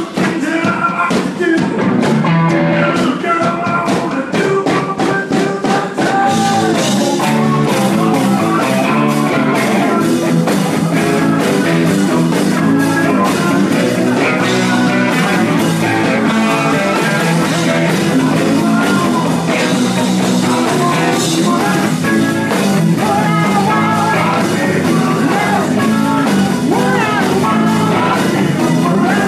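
Live rock and roll band playing, with drums, electric guitar and a singer.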